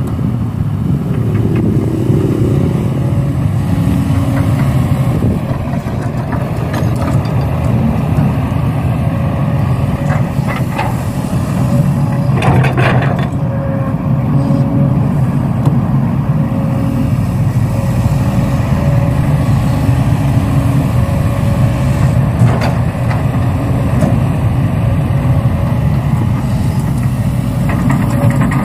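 A vehicle's engine running steadily with a deep, continuous rumble and a faint steady hum, broken by a few brief clicks.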